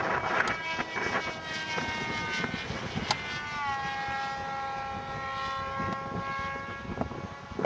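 Electric model airplane's motor and propeller whining in flight. The steady pitched whine drops in pitch about three and a half seconds in, then holds steady.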